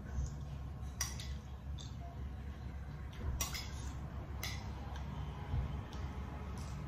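Metal spoon scraping and clinking against a plate of food as it scoops up mouthfuls: a few separate clinks, the loudest about three and a half seconds in, over a steady low hum.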